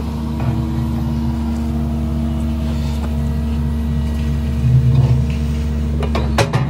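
Cat 310 excavator's diesel engine running steadily, working harder under hydraulic load for a moment twice, with a few sharp knocks near the end.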